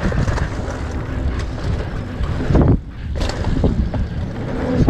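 Wind buffeting a helmet camera's microphone as a mountain bike rolls fast down a dirt trail, with a steady low tyre and trail rumble. A couple of sharp knocks come about halfway through as the bike hits bumps.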